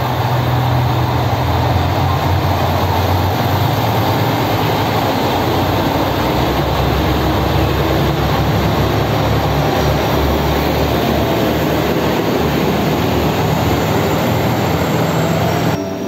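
JR Shikoku N2000-series diesel tilting train moving past along the platform: a steady loud rumble of its diesel engines and wheels on the rails. The sound stops abruptly near the end.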